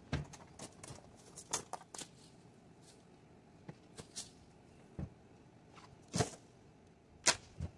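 Scattered knocks and clatters of leftover boards and debris being carried down the camper's entry steps and tossed out onto the ground, about seven sharp hits spread irregularly, the loudest near the end.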